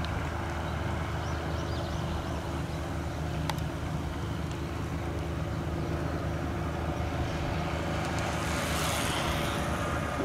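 Steady low engine hum with an even, unchanging pitch, and a brief rush of hiss near the end.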